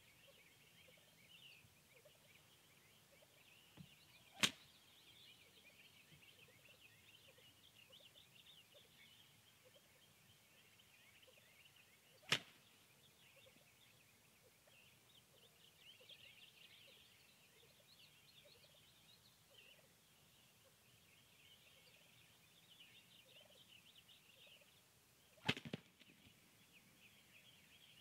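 Wild turkeys: three short, sharp sounds about 4, 12 and 25 seconds in, the last one doubled, over a faint, high-pitched chatter in the background.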